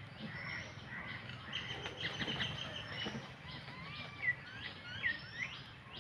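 Birds calling: many short high chirps with a few curving whistled notes, the sharpest call about four seconds in, over a low, even background.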